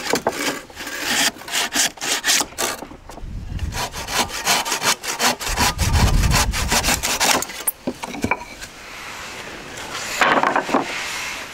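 Handsaw cutting through a round wooden pole, the blade rasping in quick back-and-forth strokes, about three or four a second. The sawing stops a few seconds before the end.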